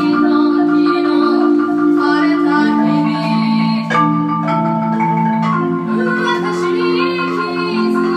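Marimba played live with mallets: slow held chords in the low and middle range that change every second or two, with higher notes ringing above.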